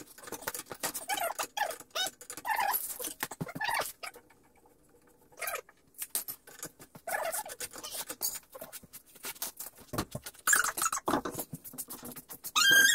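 Hand tools clicking and clattering in quick, irregular succession while coilover shock absorbers are fitted, with a short high squeak at the very end.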